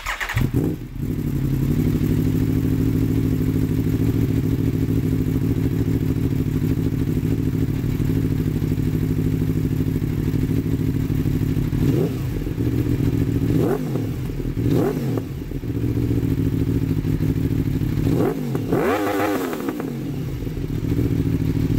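2012 Aprilia Tuono V4's V4 engine through an Austin Racing aftermarket exhaust, catching at the start and then idling steadily. Three quick throttle blips come just past the middle, and one longer rev comes near the end.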